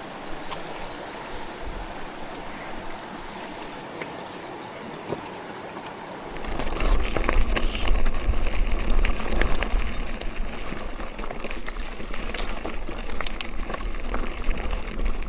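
Steady rush of water at a waterfall. About six seconds in it gets louder, with a deep low rumble and scattered clicks added.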